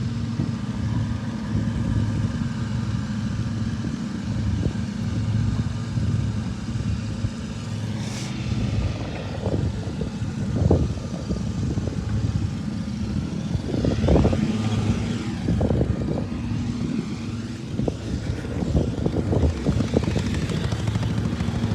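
Lawn mower engine running steadily, with a few short knocks and rattles over the drone.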